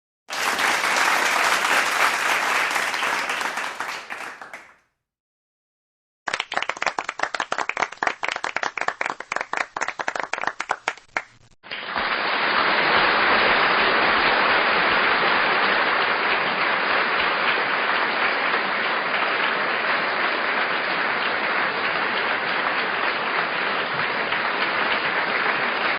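Three separate applause clips in a row. First a crowd applauding, fading out after about four seconds. After a short silence comes a smaller group clapping, with single claps heard apart. From about twelve seconds in, a large crowd applauds steadily and densely.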